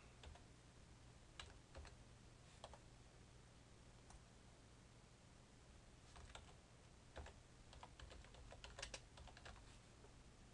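Faint typing on a computer keyboard: a few scattered keystrokes in the first three seconds, then a quicker run of keys from about six to nine and a half seconds in, over a low steady hum.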